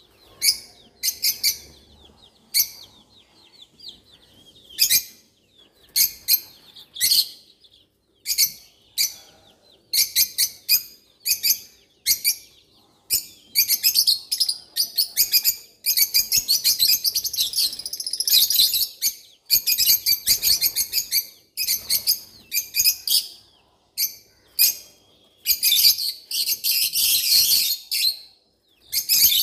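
Small birds chirping: quick runs of short, high-pitched chirps coming in bursts about once a second, turning denser and nearly continuous about halfway through and again near the end.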